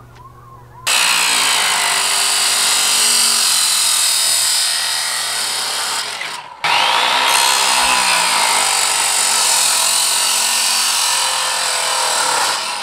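Abrasive chop saw cutting 1-inch square steel tubing: a loud, high, gritty grinding of the disc through the metal. It starts about a second in, breaks off briefly about six and a half seconds in, then runs again and dies away at the very end.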